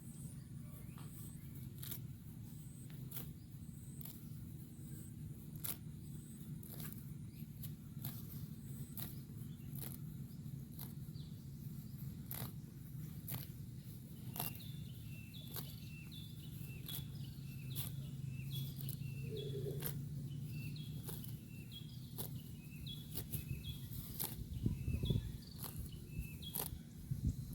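A grazing cow tearing and cropping grass, a sharp ripping crunch about once a second over a steady low hum. From about halfway a bird chirps over and over.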